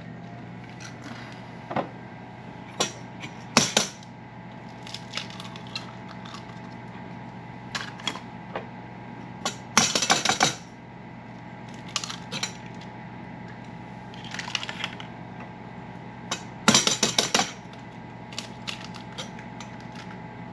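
Eggs cracked one by one on the rim of a stainless steel mixing bowl, sharp single taps, and twice a short flurry of quick clinks as a fork whisks the eggs against the metal bowl, about ten and seventeen seconds in. A steady low hum runs underneath.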